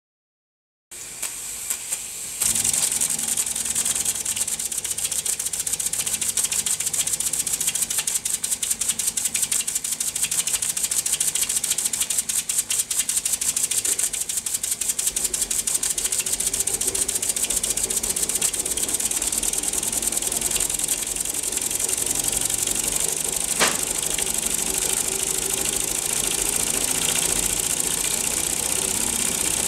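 Small model steam engine with two cylinders running fast: a rapid, even clatter of piston strokes over a steady hiss. It starts about a second in and gets louder at about two and a half seconds, with one sharp click near the end.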